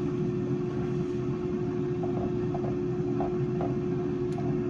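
Steady hum of a kitchen appliance fan, with one constant low tone under it. A few faint light taps come in the second half as a wire whisk stirs cream in the pan.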